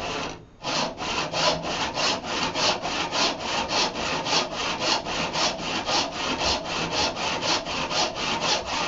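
Hand saw cutting a board in steady back-and-forth strokes, about three a second, starting about half a second in.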